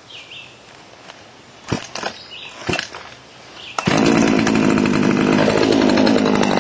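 Small two-stroke chainsaw being pull-started: a few sharp knocks from the starter pulls, then the engine catches about four seconds in and runs loudly and steadily. Its recoil starter binds unless pulled straight up.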